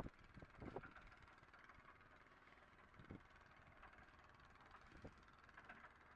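Near silence: faint outdoor background with a few soft ticks.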